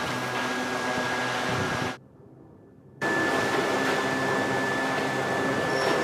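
Steady factory machinery noise with a constant high-pitched whine running through it. It drops out almost to silence for about a second midway, then resumes unchanged.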